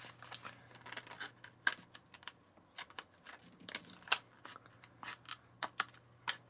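Scissors snipping through a thin plastic candy-kit tray: a string of irregular sharp clicks and snips, the loudest about four seconds in.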